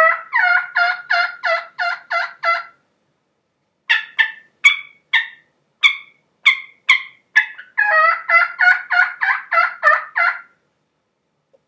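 Turkey hen yelps made on a diaphragm mouth call, with a hand cupped over the mouth. There is a run of about seven yelps, a pause, then a string of sharper, higher notes, then a longer run of about ten yelps.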